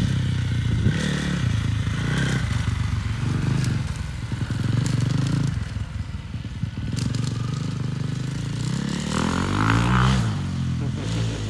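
Four-stroke 350cc motocross bike engine running, with the throttle blipped so the note rises and falls, most clearly in one rev up and back down near the end.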